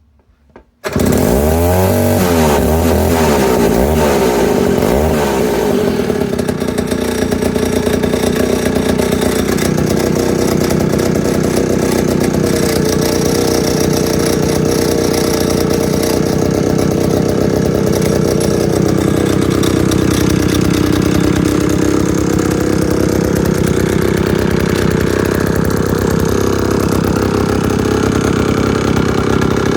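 Chainsaw engine that comes in suddenly about a second in and is revved up and down several times, then runs steadily at high speed.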